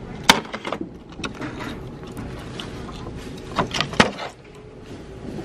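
A plastic item being handled: a few sharp clicks and knocks, the loudest about a third of a second in and a small cluster near four seconds, over a steady shop background noise.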